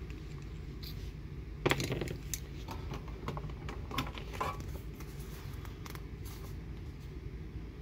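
Small items being handled: a sharp click about two seconds in, then a few fainter clicks and scrapes, over a steady low hum.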